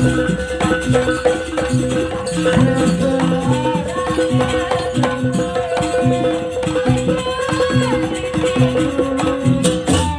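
Javanese jaranan gamelan music playing live: a repeating drum and gong pattern under a wavering melody, with one steady held note sounding throughout.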